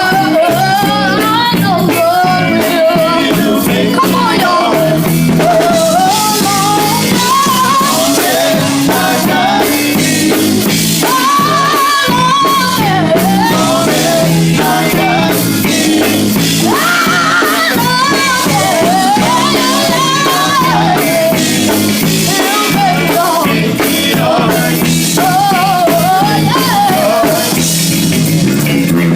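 Gospel song performed live: a lead singer's voice sliding up and down in long phrases over a band with drums, bass and guitar.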